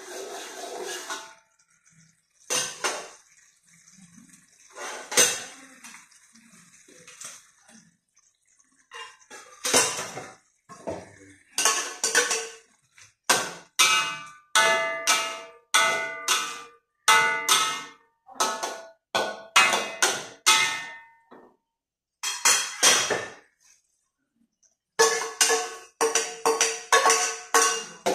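Metal spatula scraping and knocking against a steel wok while stirring food, a series of sharp clanks with short metallic ringing. They come a few at a time at first, then about twice a second, with a couple of brief pauses.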